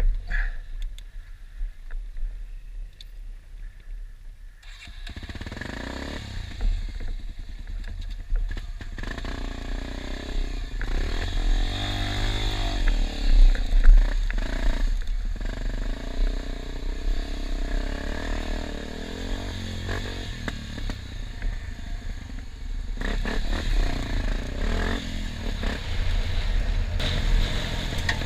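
Enduro motorcycle engine running and revving, its pitch rising and falling, over a steady low rumble on the microphone. The engine comes in loud about five seconds in.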